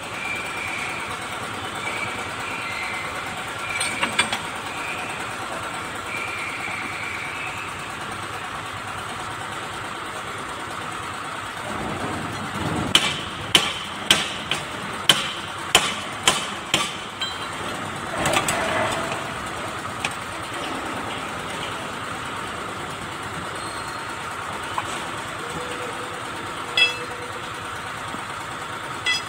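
A quick run of about nine sharp metal-on-metal blows, about two a second, as a hand tool is struck against the Kubota B6001 tractor's transmission shaft, over a steady mechanical drone.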